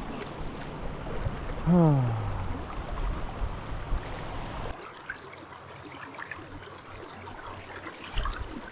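River current running, a steady rushing of water. About two seconds in, a short pitched sound slides downward, and about halfway through the low rumble drops away.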